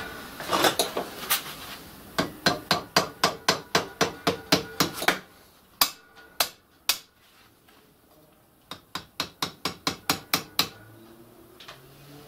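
Hand hammer striking a metal strip clamped in a bench vice, folding it over into angle. The blows come in quick runs of about four to five a second, each with a short metallic ring. A few single blows fall in the middle, then a second run.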